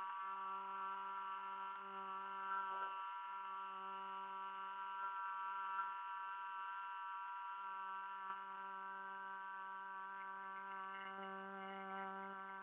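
A steady, buzzy drone holding one low pitch without bending.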